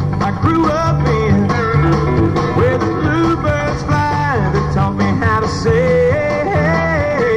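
Background music: a song with guitar, a sliding melody line over steady repeating bass notes.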